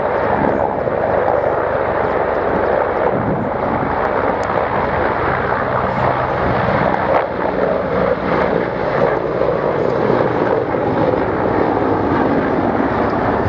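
Czech Air Force Mi-171 and Mi-35 Hind military helicopters flying a display, their turbine engines and rotors making a loud, steady noise with no clear changes.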